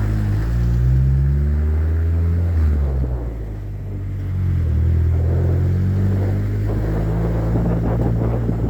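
An engine running with a steady low hum whose pitch shifts a little, easing off briefly about three seconds in.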